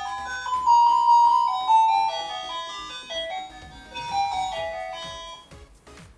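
Wireless doorbell receiver playing one of its built-in electronic chime melodies: a tune of single held notes that fades away about five seconds in.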